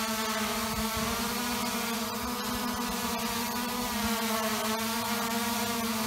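Xiaomi Mi Drone quadcopter hovering, its propellers giving a steady buzzing whine that wavers slightly in pitch as the motors adjust. It is carrying the extra load of an SJ4000 action camera.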